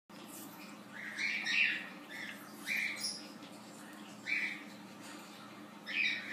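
Small dog making short, squeaky sounds, about six of them a second or so apart, over a faint steady hum.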